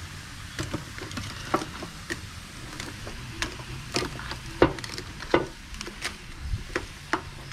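Metal barbecue tongs clicking and knocking against mud crab shells and the grill grate as the crabs are turned, a dozen or so irregular sharp clacks.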